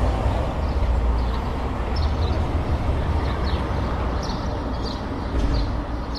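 City street ambience: a steady rumble and wash of traffic, with short high chirps scattered through it.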